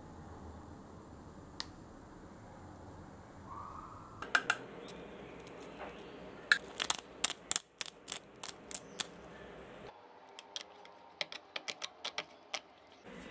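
Clusters of sharp plastic clicks and taps, starting about four seconds in: a kitchen utensil knocking against a plastic colander as raw beef chunks are stirred in it. A low room hum runs underneath.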